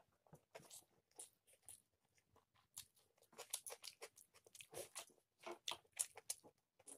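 Quiet, irregular chewing and crunching as rice and chicken curry are eaten by hand, with fingers working the rice on a metal plate.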